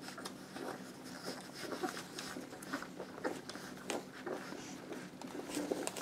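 Newborn puppies suckling at their mother: irregular soft smacking and clicking noises.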